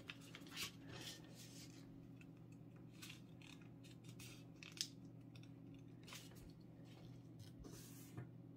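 Faint rustles and soft taps of a sheet of paper being folded and creased by hand, over a low steady hum. The clearest rustle comes about five seconds in.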